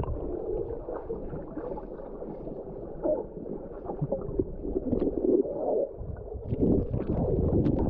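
Muffled underwater sound from a camera held below the surface: water churning and bubbles gurgling around a swimmer, with a few sharp clicks in the second half.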